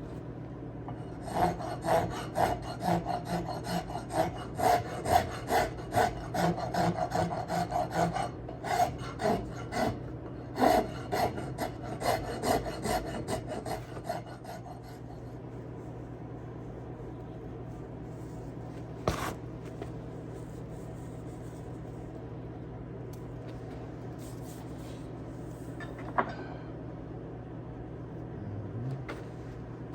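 Hand rasp strokes on wood, about two a second, shaping an axe handle; the rasping stops about halfway through. A steady low hum continues, with two single knocks in the second half.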